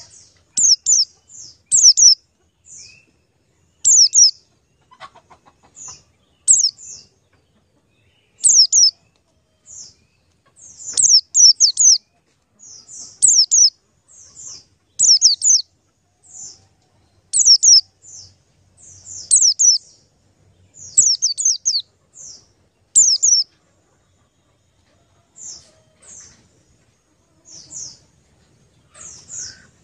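A small bird chirping over and over: short, very high chirps that each drop quickly in pitch, often in quick clusters of two or three, about one cluster a second.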